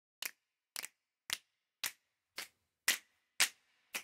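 Sampled finger snaps from ProjectSAM's Swing! library, played through Kontakt. There are seven crisp snaps, evenly spaced at about two a second, on a steady beat.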